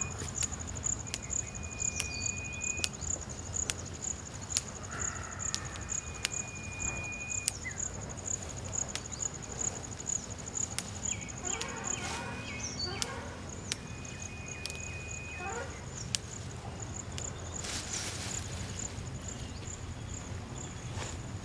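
A high, rapidly pulsing insect trill runs on steadily, while moringa branches are pulled and stripped, giving scattered sharp snaps and a burst of leafy rustling near the end. A flat, whistle-like tone is held for about a second and a half, several times over.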